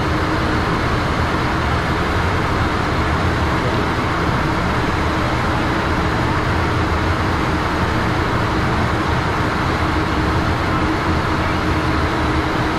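In-flight cockpit noise of a Learjet: a loud, constant rush of airflow and jet engine noise, with a faint steady hum underneath.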